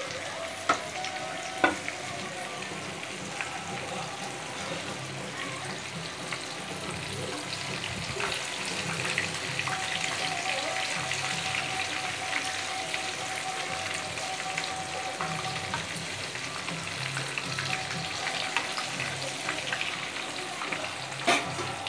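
Chicken 65 pieces deep-frying in sesame oil, a steady crackling sizzle of bubbling oil. A few sharp knocks come twice near the start and once near the end.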